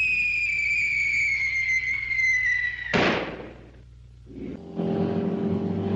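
Cartoon sound effects: a long whistle falling slowly in pitch, cut off about three seconds in by a sudden crash that dies away. After a short lull, a steady buzzing hum starts.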